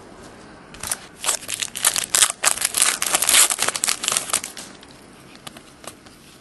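Wrapper of a 2009-10 Panini Elite basketball card pack being torn open and pulled off the cards: a run of crinkling and tearing from about a second in until nearly five seconds in, then a few faint clicks as the cards are handled.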